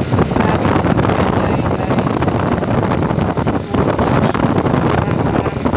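Steady wind rush buffeting the microphone of a moving motorcycle, mixed with engine and tyre noise.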